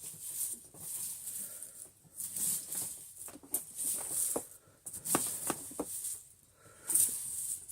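Dry crunchy food debris being scattered and crushed by hand onto carpet: irregular crackling and rustling with sharp clicks.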